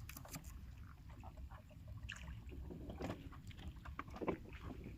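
Low, steady water-and-wind rumble around a small fishing boat, with a few scattered light knocks and clicks.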